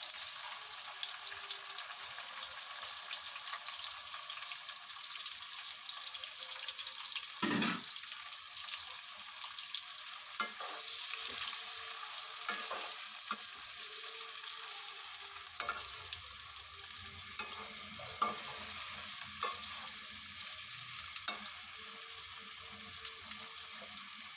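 Sliced onions sizzling in hot ghee in a metal pot, a steady hiss. A perforated metal spoon stirring them knocks and scrapes against the pot every few seconds.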